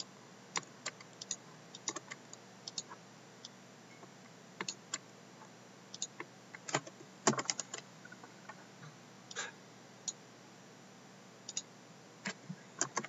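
Computer mouse clicks and keyboard taps at irregular intervals, with a quick run of louder clicks about seven seconds in.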